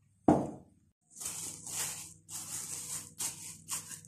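A thump about a quarter of a second in, then a plastic freezer bag being handled, crinkling in a series of short rustles.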